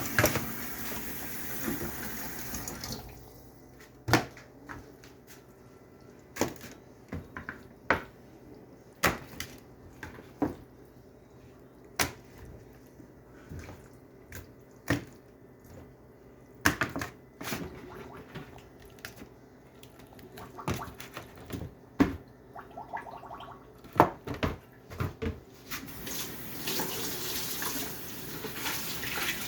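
Kitchen tap running for the first few seconds, then shut off, followed by a long stretch of scattered knocks and clicks as washed chicken pieces are handled in a pan. The tap runs again near the end.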